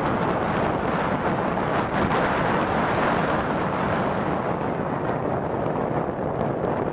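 Wind buffeting the microphone on open grassland: a steady rushing noise with no tones in it.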